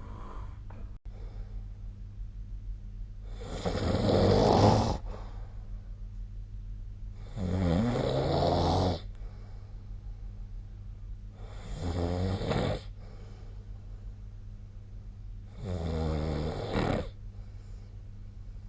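A sleeping person snoring: four loud snores about four seconds apart, each lasting one to one and a half seconds, over a steady low hum.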